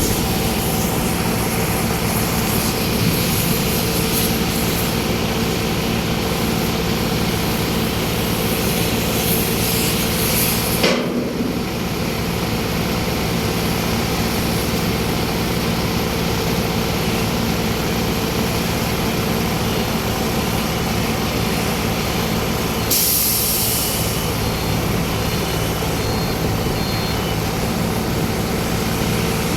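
An engine running steadily, with a constant hiss over its hum. The sound breaks off briefly about eleven seconds in and shifts again a little after twenty-three seconds.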